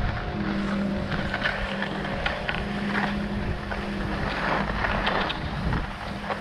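Rossignol Experience 84 AI skis sliding and scraping over groomed snow, with scattered sharp clicks and wind rushing over the action camera's microphone. A steady low hum runs underneath, breaking off briefly now and then.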